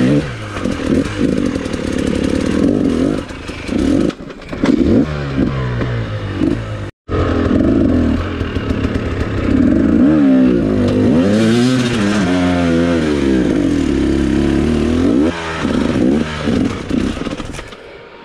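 Off-road motorcycle engine revving up and down again and again under load as the bike is worked over rocks. The sound drops out abruptly for a moment about seven seconds in and fades lower near the end.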